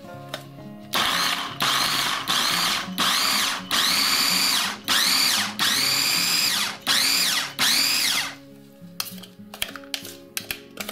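Electric mini food chopper run in short pulses: about nine bursts, the motor's whine rising as it spins up and falling as it stops each time, as it chops carrot and herbs. A few light clicks follow near the end.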